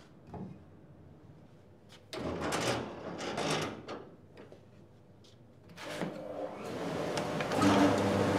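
A few knocks and a clatter of handling, then a drum sander and its dust extraction starting up about six seconds in and building to a loud steady running hum.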